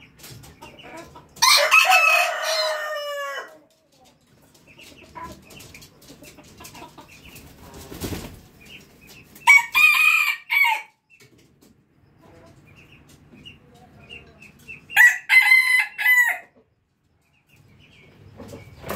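Junglefowl rooster crowing three times, about six seconds apart. The first crow is the longest and falls in pitch at its end; the later two come in short broken phrases.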